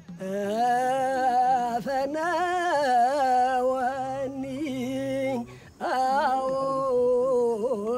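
A man singing Ethiopian Orthodox liturgical chant, holding long notes that waver and curl in pitch, with a brief pause for breath about five and a half seconds in.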